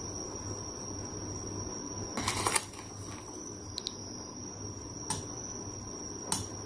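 Metal spoon scooping powdered cereal drink from a foil bag into a glass: a brief rustle of the bag about two seconds in, then a few single light clicks of the spoon against the glass.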